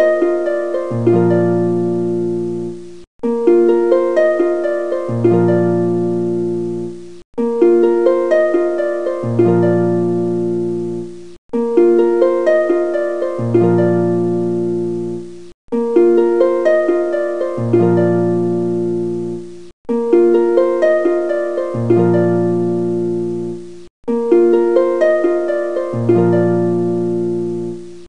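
Background music: a short plucked-string phrase, harp-like, over a low held note, looped about every four seconds with a brief gap between repeats.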